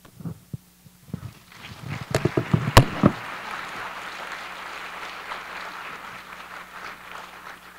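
Handheld microphone being handled and set back in its stand, a series of knocks and thumps with a loud bang about three seconds in. Then audience applause, steady and slowly fading.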